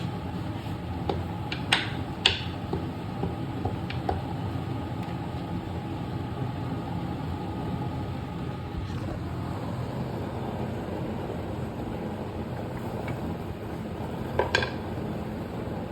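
A steady low kitchen hum with a few short clinks of utensils or dishes, two about two seconds in and a quick cluster near the end.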